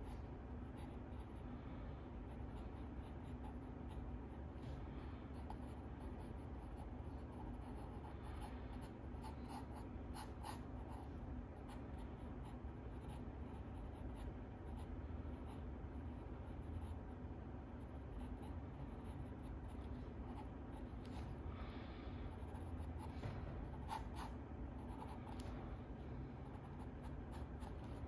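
Drawing strokes scratching on sketchbook paper, faint, quick and irregular, over a low steady hum.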